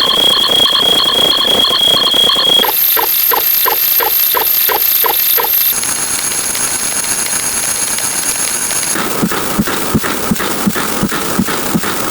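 Electronic beeping tones: a steady high tone that jumps to a different pitch every few seconds, with regular ticks about two or three a second in the later parts.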